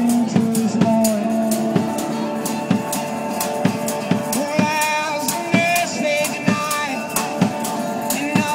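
Music: a band playing with a steady drum-kit beat under held instrument notes, without singing.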